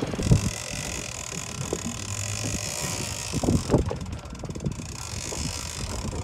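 Wind on the microphone over boat and water noise on a sport-fishing boat, with a few dull knocks about a third of a second in and again around three and a half seconds.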